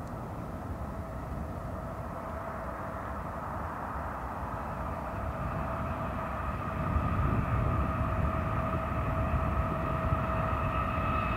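Approaching Union Pacific freight train led by GE C45ACCTE (ES44AC) diesel locomotives: a low rumble with a steady whine, growing louder about seven seconds in.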